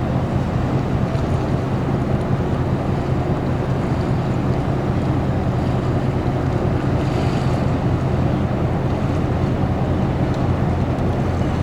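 Steady low drone of the lake freighter KAMINISTIQUA's engines and machinery as the ship moves into the lock, a deep hum that holds level throughout.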